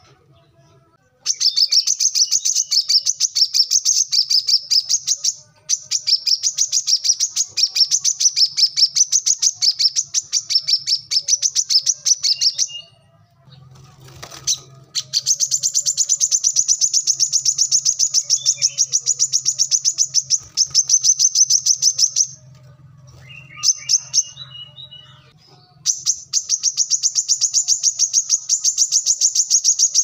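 Brown-throated sunbird singing: a loud, high-pitched chattering song made of very fast repeated chirps in long runs, broken by a few short pauses. A brief phrase of lower notes comes about three-quarters of the way through.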